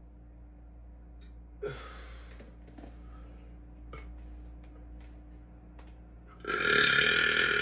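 Quiet breathing with a short sharp intake about a second and a half in and a few small mouth clicks, then near the end a man lets out a sudden loud burp that carries on.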